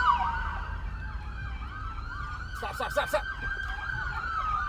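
Emergency vehicle sirens at a crash scene: one winds slowly down and back up in a wail while another yelps faintly, over the low rumble of road noise. A brief cluster of sharp clicks sounds about halfway through.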